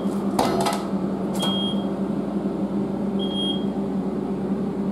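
Lifting machinery running during a window-glass lift: a steady hum, with a short high-pitched beep repeating about every two seconds and a brief clatter about half a second in.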